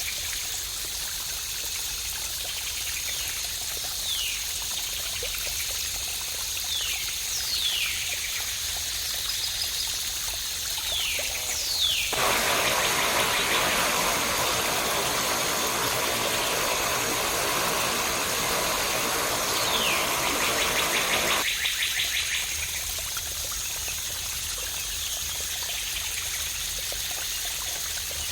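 Steady rush of flowing water with a few birds calling in short falling whistles. About twelve seconds in, the water turns suddenly fuller and deeper for some nine seconds, with a quick bird trill near its end, then drops back just as abruptly to the thinner rush.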